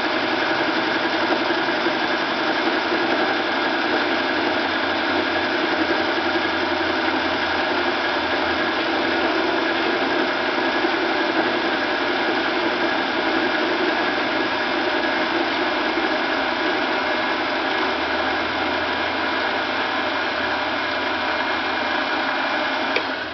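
Sieg 7x10 mini lathe running steadily, its motor and headstock gears turning while the tool takes a facing cut across an irregular aluminum block. The sound cuts off near the end as the lathe is switched off.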